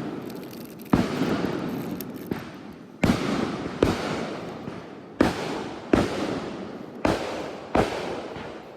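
Consumer fireworks going off in quick succession: about seven sharp bangs roughly a second apart, each followed by a fading crackle.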